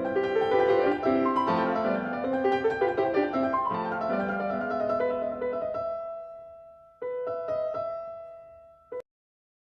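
Background piano music, notes ringing and fading, with a final chord about seven seconds in and a short last note before it cuts to silence.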